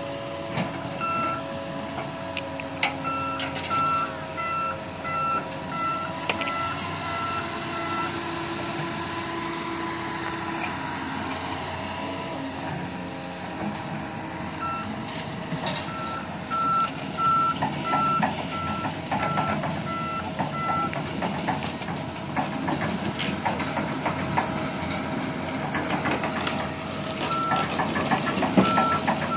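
A heavy-equipment reversing alarm beeping in three runs of several seconds each, about two beeps a second, over steadily running diesel engines of the excavator and truck. Clanking and knocking grow toward the end.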